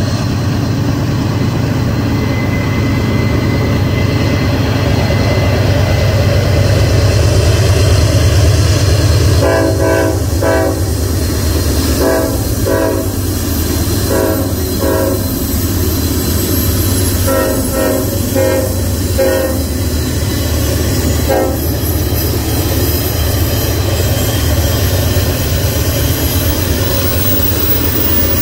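Norfolk Southern diesel freight locomotives passing, their engines giving a steady deep rumble. About ten seconds in, the locomotive horn sounds a run of short blasts, some in quick pairs and threes, the last one near twenty-one seconds.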